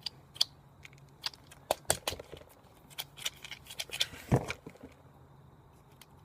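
Hands rummaging in a small, tightly packed survival-kit container: scattered small clicks, taps and rustles of items being prised out, with one louder knock about four seconds in.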